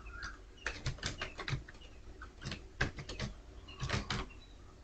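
Computer keyboard keys clicking as a word is typed, in three quick bursts of keystrokes.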